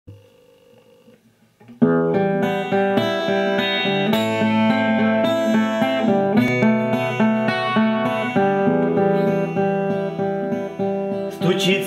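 Instrumental introduction of a song: music with held chords and a melody line, coming in suddenly about two seconds in after a faint, near-quiet start.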